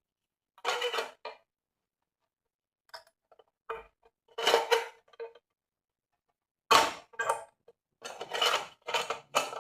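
A metal box camera being handled: several short clattering, scraping bursts as its parts are moved.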